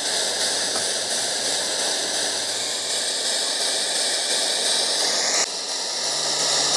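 Propane torch flame hissing steadily while heating a copper pipe joint for soldering, dipping briefly about five and a half seconds in.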